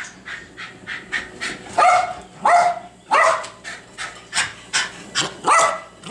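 Puli dog barking repeatedly, a string of loud, sharp barks with fainter short yaps between them: alert barking at a delivery.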